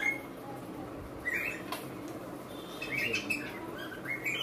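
Birds chirping in short calls a few times, over a low steady hum.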